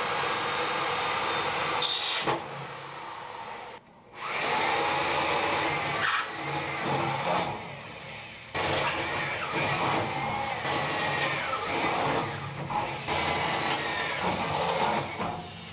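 Power drill boring a hole through sheet steel, running in three spells with short stops, a wavering squeal of the bit cutting metal over the motor noise.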